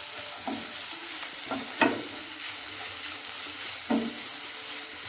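Chopped cabbage, carrot and green beans sizzling as they are stir-fried in a non-stick frying pan, with a few scrapes of a wooden spatula against the pan.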